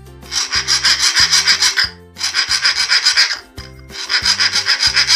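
Flat steel file rubbed in quick short strokes across a hardened-steel chisel blade, in three runs of rasping with short pauses between. This is a hardness test: the file leaves no scratches on the very hard steel.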